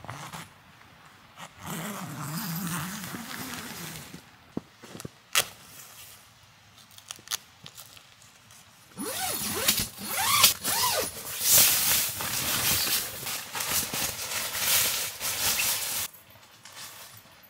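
Tent fabric being handled and pulled into place, rustling and scraping. It is loudest in the second half, with a couple of sharp knocks near the middle.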